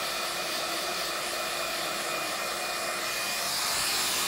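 iTeraCare handheld wand running with a steady airy rushing and a faint hum, stopping abruptly near the end.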